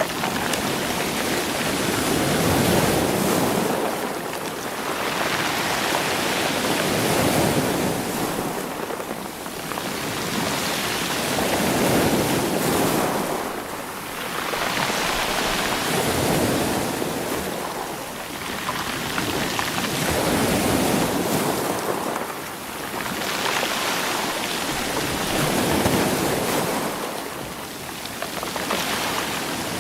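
Sea waves surging over a stony shore and rolling the stones, each wave a rushing swell that comes about every four to five seconds and then drains away.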